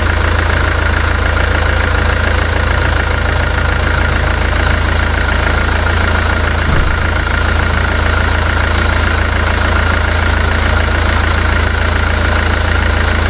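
Mercedes-Benz C250 diesel engine idling steadily with its newly replaced DPF pressure sensor fitted.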